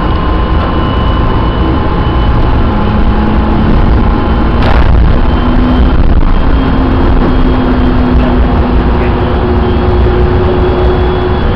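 Light-rail train running along the track, heard from inside the operator's cab: a steady low rumble with the motors' thin whining tones, which shift in pitch partway through. There is a sharp clack about four and a half seconds in, and the noise swells as another train passes close alongside around the middle.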